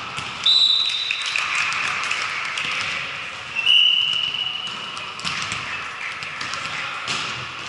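Indoor volleyball rally in an echoing gym: sharp ball contacts and footfalls on the court, with two short high squeaks, one near the start and one about halfway through.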